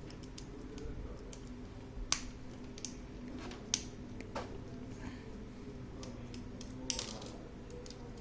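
Sharp plastic clicks and snaps as the internal assembly of a Canon LiDE flatbed scanner is pried open by hand. The clicks are irregular, with the loudest about two seconds in and near seven seconds, over a low steady hum.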